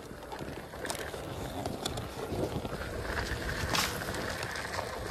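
Riding an electric unicycle fast over a dirt forest trail: wind rushing over the microphone and the tyre rumbling on the ground, with a few sharp knocks from bumps, the loudest near four seconds in.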